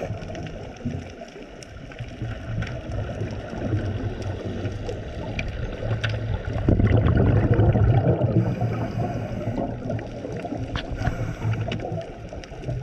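Underwater sound picked up by a diver's camera: a low rumbling gurgle of water with scattered faint clicks. It grows louder for a few seconds about halfway through.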